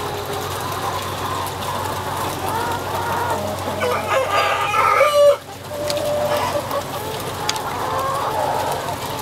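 A flock of broiler breeder chickens clucking and calling over one another, with a louder run of calls about four to five seconds in that breaks off suddenly.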